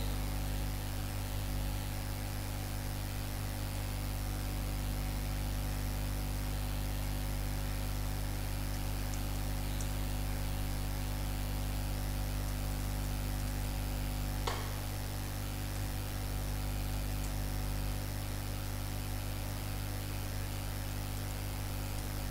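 Steady electrical mains hum with a background hiss, with one short click about two-thirds of the way through.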